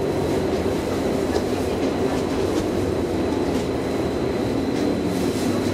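Bombardier Flexity Swift A32 tram running along the track, heard from inside the driver's cab: a steady rumble of wheels and running gear with a faint high steady whine above it.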